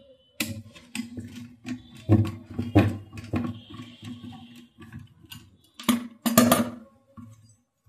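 A screwdriver unscrewing the fixing screws of an IGBT welding machine's circuit board and heatsink, with irregular clicks and knocks. About six seconds in, a cluster of louder knocks and clinks comes as the aluminium heatsink and board are pulled apart.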